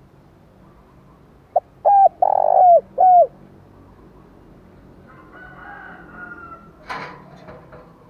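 Spotted dove giving its cooing challenge call close to the microphone: one phrase of four low coos, the third the longest and loudest. A sharp knock comes about seven seconds in.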